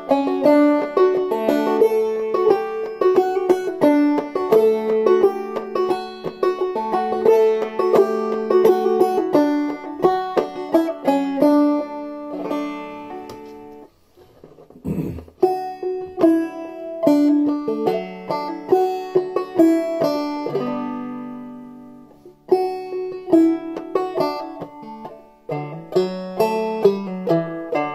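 Banjo played clawhammer style in open D tuning: a steady, bouncing run of picked notes and brushed strums. About halfway the playing stops briefly with a low thump, and a little later a chord is left to ring and fade before the tune picks up again.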